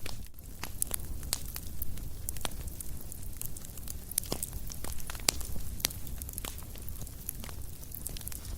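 Fire crackling: irregular sharp pops and snaps, several a second, over a low steady rumble.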